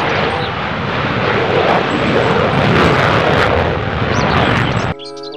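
Twin-engine F/A-18 Super Hornet fighter jet taking off: a loud, steady jet engine noise as it rolls down the runway and lifts off. The noise cuts off suddenly near the end.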